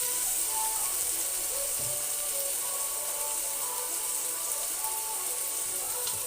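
Onions, peppers and garlic sizzling steadily in a hot pan as they fry, with faint music in the background.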